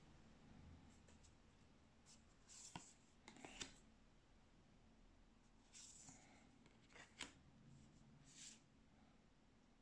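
Faint swishes and light taps of oracle cards being slid one by one from the front of a hand-held deck to the back, about five in all, a second or two apart.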